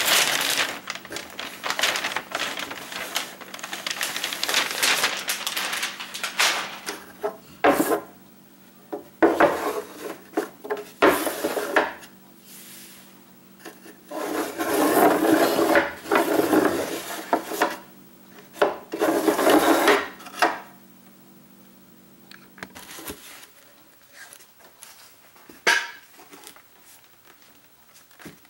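A clear plastic drawer organizer tray being slid and pushed about in a lined wooden kitchen drawer. It comes as several bursts of scraping and rubbing with a few sharp knocks, then quieter handling near the end.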